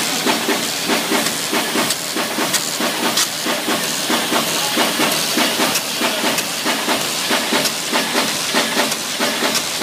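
Inline paper-finishing line running: a creasing machine and Heidelberg Ti 56 buckle folder processing a stream of sheets. A fast, regular mechanical clatter of about four strokes a second sits over a steady air hiss from the pneumatic sheet feed.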